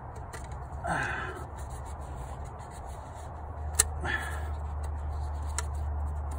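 Faint rubbing and handling noises as a gloved hand seats a new rubber seal in the 6.7 Cummins' fuel filter housing. There is one sharp click a little before four seconds in. Under it runs a steady low hum that grows louder about halfway through.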